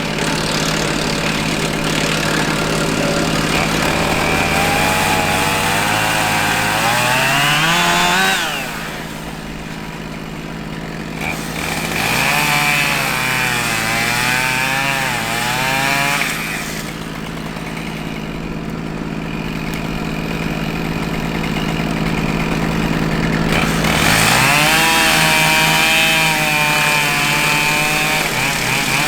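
Husqvarna 572XP chainsaw revving up and cutting, its pitch climbing, sagging and wavering under load, dropping back, then climbing again and holding high near the end. Underneath, a steady engine hum from the tractor running the PTO wood chipper.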